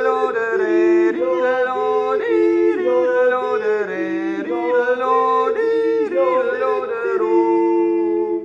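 A yodeling song: several voices hold notes and jump abruptly between high and low pitches, then drop away right at the end.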